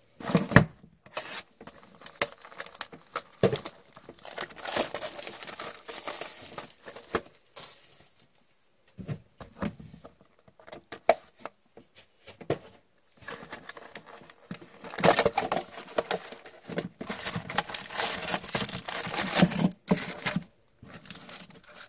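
Plastic shrink wrap crinkling and tearing as a utility knife cuts it and it is pulled off a cardboard trading-card hobby box, with rustling and short knocks from the cardboard as the box is opened and the stack of card packs is slid out. The rustling comes in irregular spells with brief pauses and is busiest in the second half.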